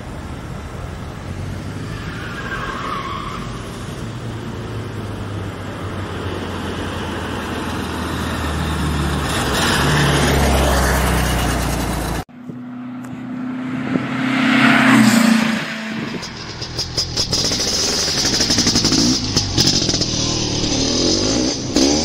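A car's engine running and passing by, in two clips. A steady engine sound swells louder toward about ten seconds in and cuts off abruptly about twelve seconds in. Then a second pass swells up about three seconds later and fades.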